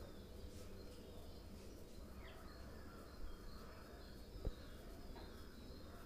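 Faint steady low hum with a few brief, faint bird chirps, and one short soft knock about four and a half seconds in.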